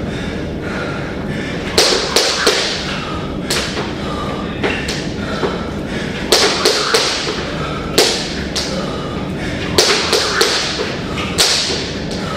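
Repeated sharp knocks or taps in small quick groups of two or three, coming about every second and a half over a steady background hiss.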